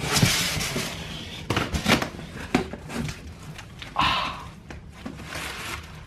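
Cardboard shipping box being opened by hand: cardboard flaps and paper packing rustling and scraping, with several sharp knocks and clicks as the box is handled.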